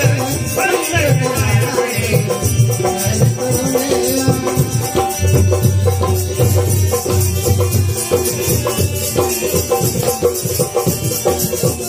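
Live folk music played through a PA: hand drums beating a steady rhythm under held harmonium notes and a jingling rattle. A singer's voice carries over the microphone in the first couple of seconds, then the music goes on without singing.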